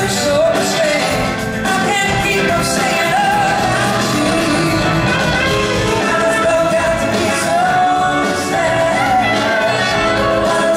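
Live blues-rock band playing: electric guitars over bass and drums.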